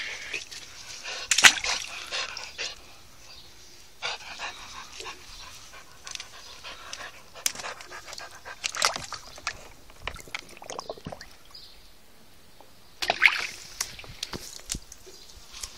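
Dog dunking its head into a plastic paddling pool to dive for something on the bottom: water splashing and sloshing in several short bursts, with the dog panting in between.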